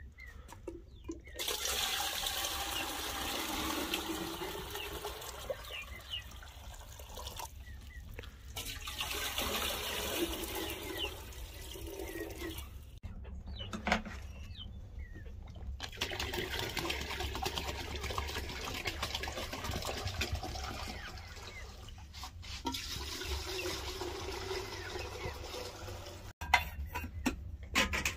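Water poured from a plastic jerrycan into metal kettles, in four long pours with short breaks between them.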